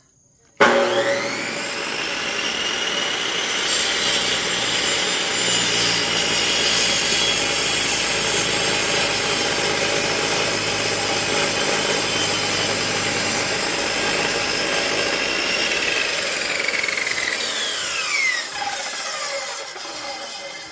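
Electric cut-off saw starting up about half a second in, its motor whining up to speed, then cutting through a log for about fifteen seconds; near the end the whine falls away as the blade winds down.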